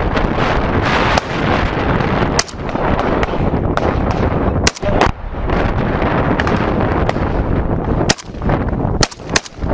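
Gunfire in a firefight: sharp rifle shots cracking every second or so, a few in quick succession near the end, over a constant loud rush of noise.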